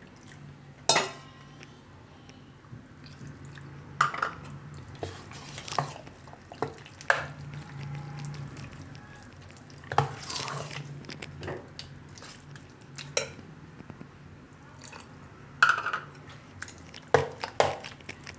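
Steel spoon stirring thick semolina batter in a stainless steel bowl, with irregular sharp clinks as the spoon knocks against the bowl.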